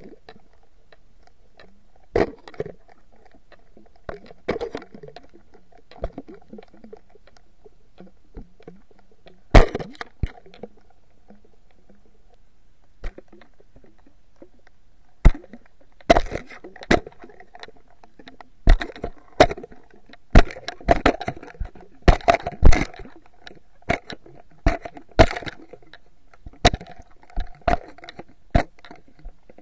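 Fish striking an underwater camera and its bait, heard through the camera housing as sharp knocks and cracks. They are scattered at first, then come rapid and nonstop about halfway through as a school attacks it, over a faint steady hum.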